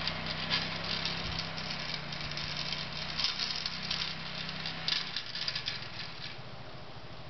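2002 Arctic Cat 300 4x4 ATV engine running as it pushes a plow through snow and moves away, with a rattling clatter over the engine hum. The hum fades about five seconds in.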